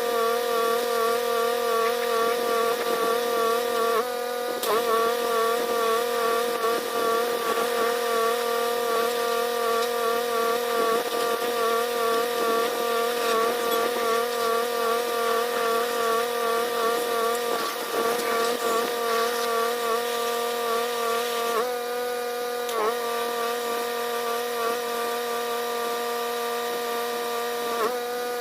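Pressure washer running steadily, its engine-driven pump giving a constant wavering hum over the hiss of the high-pressure water jet. The tone breaks briefly a few times.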